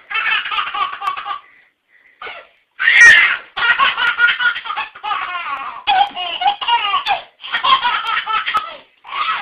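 A baby laughing in a string of bouts, with a pause of about a second after the first one.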